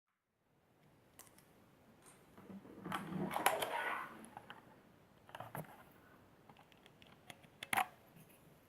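Keys of a Motospeed Inflictor CK104 mechanical keyboard being pressed: irregular clicks, with a louder flurry of clatter about three to four seconds in.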